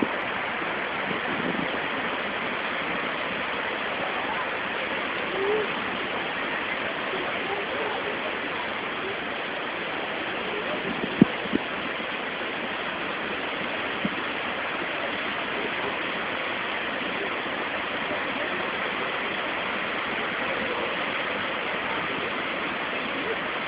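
Muddy floodwater of a river in spate rushing and churning past, a steady, even rush of water. A single sharp knock sounds about eleven seconds in.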